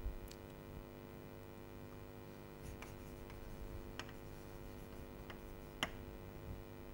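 Chalk writing on a blackboard: a few faint, scattered taps and scratches of chalk strokes, the sharpest near the end, over a steady faint hum.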